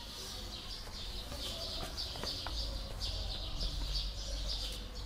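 Small birds chirping in a steady, busy chatter, with a low steady hum underneath.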